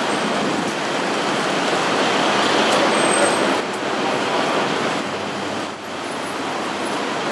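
Steady city street traffic noise: a continuous wash of passing cars and vans.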